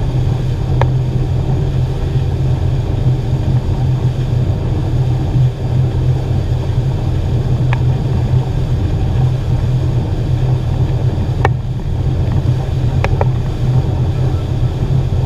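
Outboard motor running steadily at speed under load while towing a tube, mixed with the rush of the boat's wake and wind on the microphone. A few faint clicks come through, one near the start and several in the second half.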